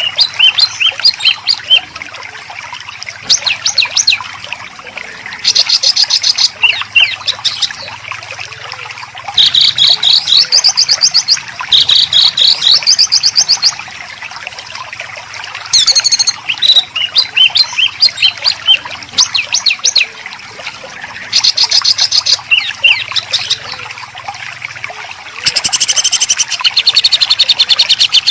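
Small songbirds singing bursts of fast, dense, harsh rapid-fire notes (the 'tembakan rapat dan kasar' phrases used to train songbirds), each burst lasting one to four seconds. About six such bursts come with quieter scattered chirps between them.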